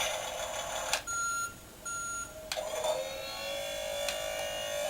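Battery-powered Paw Patrol Rubble toy vehicle playing its electronic sound effects through a small speaker: two short beeps, then a longer steady electronic tone.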